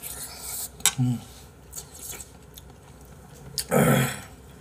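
Close-up eating sounds from a person eating ramyun: a slurp as food goes into the mouth, then light clicks of utensils on the bowl. There is a short grunt about a second in, and a loud vocal exhale or belch near four seconds.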